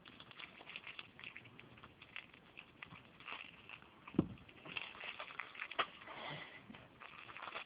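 Faint crinkling and irregular clicking of a plastic parts package being handled and opened, with a few sharper clicks, the loudest about four seconds in.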